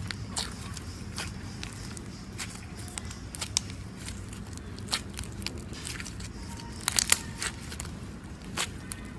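Slime being pressed and squeezed by hand, giving irregular crackling clicks and pops, with a cluster of louder pops around seven seconds in.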